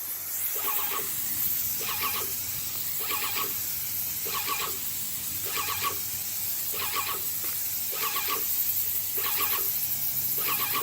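Titan 440 airless paint sprayer spraying at about 3,200 psi through a 211 tip: a steady high hiss from the tip, with a squeal repeating about once a second.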